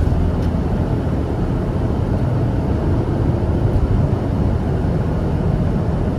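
Steady rumble of a car being driven, heard from inside the cabin: engine and tyre noise, strongest in the low end.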